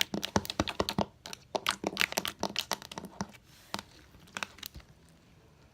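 Slime being squeezed and stretched in the hands, making a quick run of sticky clicks and pops for about three seconds, then only a few scattered pops.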